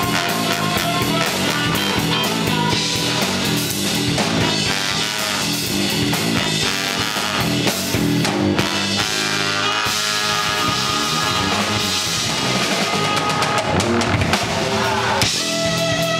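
A live band playing: electric bass guitar and drum kit with horns, continuous music throughout.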